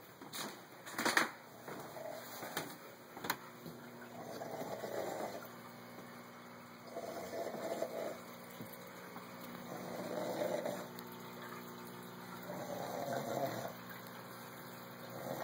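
Snoring: slow, regular rasping breaths about every three seconds, four of them and a fifth starting at the very end. A few sharp clicks sound in the first three seconds.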